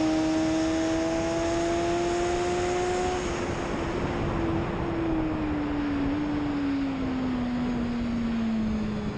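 BMW S1000RR's inline-four engine at high revs on track, its note climbing slowly for the first few seconds, then falling steadily for the last four as the bike slows for a corner, with a couple of small jumps in pitch on the way down. Heavy wind rush over the microphone throughout.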